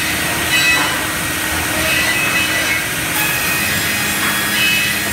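Baker band saw, driven by a large electric motor, running and sawing wood: a steady, loud mechanical rush with brief high-pitched tones coming and going.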